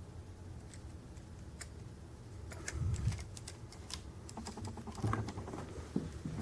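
Scattered light clicks and taps of a small diecast model being handled, its hard metal and plastic parts knocking, with a couple of soft low thumps about three and five seconds in.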